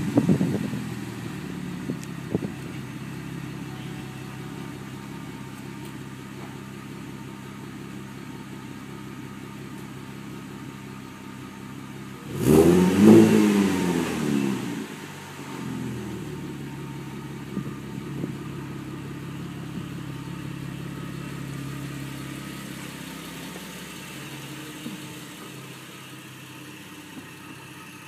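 Chevrolet Camaro V6 running through an MRT 2.0 axle-back exhaust. It settles to a steady idle from a rev at the very start. About twelve seconds in, one blip of the throttle makes the exhaust rise sharply and fall away over about two seconds before it returns to idle.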